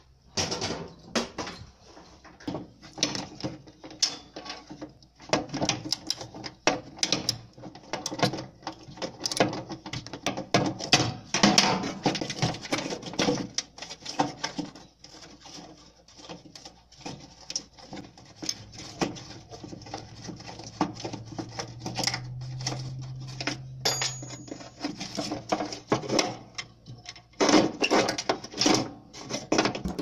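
Socket wrench clicking and metal tools knocking as the nuts holding a riding mower's starter solenoid are undone, with scattered handling clatter throughout.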